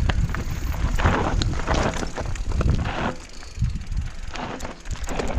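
Mountain bike descending a loose, stony singletrack: tyres crunching over gravel and rocks, with frequent knocks and rattles from the bike and a low rumble of wind on the microphone.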